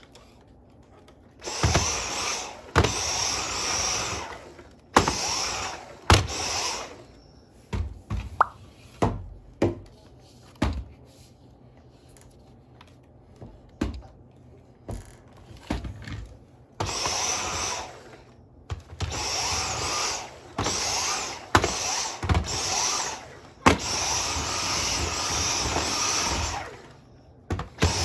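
Dyson V10 cordless stick vacuum's motor running in repeated bursts of one to several seconds, starting and stopping sharply, with clicks and knocks between the bursts. This is the unit that has lost all its suction.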